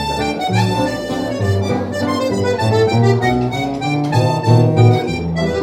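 Small live jazz band playing an instrumental passage without vocals: a reedy melody line over guitar, with a bass line moving underneath.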